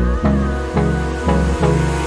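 Background pop music with a steady beat and no vocals, an instrumental stretch of the song.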